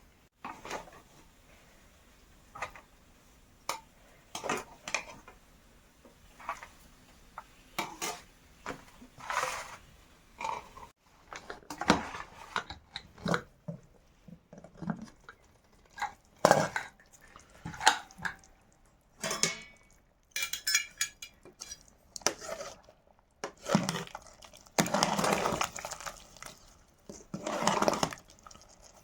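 Metal utensils and cookware clinking and knocking irregularly. There are a few longer scraping strokes near the end.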